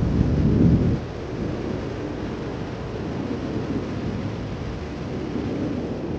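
Ocean surf breaking and washing up a sandy beach: a steady rushing rumble, heaviest in the low end, louder for about the first second and then settling into an even wash.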